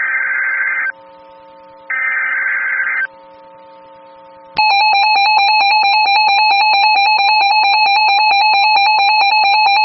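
Emergency Alert System signalling: two harsh buzzing SAME header data bursts of about a second each with a pause between, then about four and a half seconds in a louder, steady, shrill electronic attention tone begins, the alert that announces a tornado warning.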